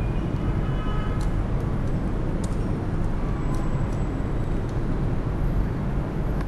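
Steady low rumble and hiss of background noise with a low hum under it, and a few faint clicks.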